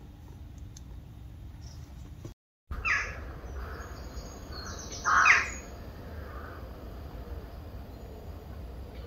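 A bird giving two short, harsh calls about two seconds apart, the second louder, over a faint steady background.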